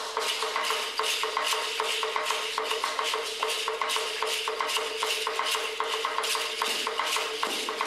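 Rattles shaken in a quick, even rhythm, about four to five shakes a second, keeping time with Aztec-style dancing, over a steady hum.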